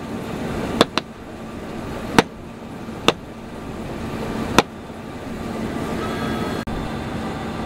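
Five sharp taps of a hand on the plastic dome of a combine harvester's amber rotating beacon, spread over the first five seconds, over the steady low hum of a running engine.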